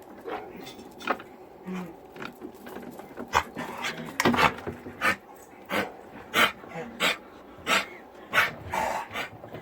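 A dog coughing with kennel cough: a series of short, harsh hacks, sparse at first and then coming about one to two a second from around three seconds in.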